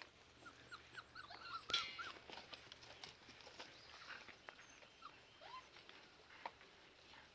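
Puppies making faint, short, high whines and squeaks. A quick run of them comes in the first two seconds, with a sharp click among them, and a few more follow later.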